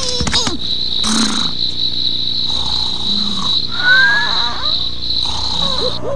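Cartoon night-time sound effect of crickets chirping steadily, with a few soft swishes and a short rising whistle about four seconds in.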